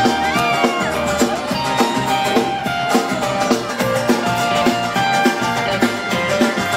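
Live band music with a steady drum beat.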